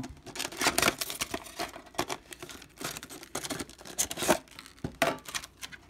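Clear plastic packaging of a Pokémon card tin being pulled and torn open by hand, crackling and crinkling in irregular snaps, with a few sharper cracks about one, two and four seconds in.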